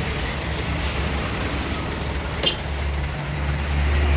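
Heavy truck engine running in slow traffic, growing louder about three seconds in, with one short sharp hiss about two and a half seconds in.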